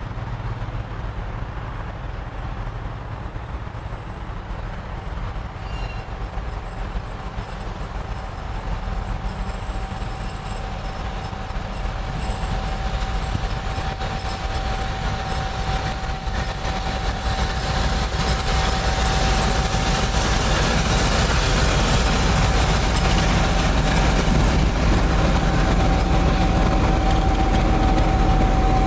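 Two-section 2M62 diesel locomotive running light, its two-stroke diesel engines rumbling as it approaches and draws level, growing steadily louder. A steady whine joins in about a quarter of the way through.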